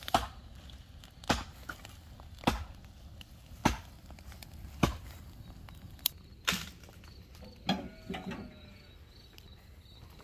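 Firewood being chopped: sharp wooden knocks at an even pace, a little over a second apart, about eight strokes, stopping about eight seconds in.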